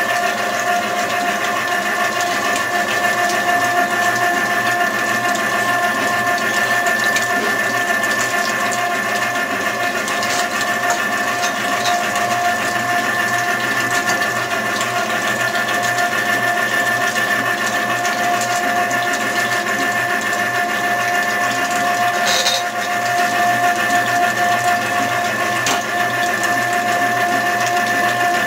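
Electric tomato strainer machine running with a steady motor whine as boiled tomato pulp is pressed through it and comes out as liquid purée.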